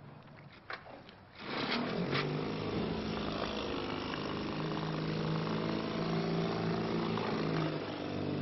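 Small outboard motor on an aluminium fishing boat, coming in suddenly about a second and a half in, then running steadily at a constant pitch.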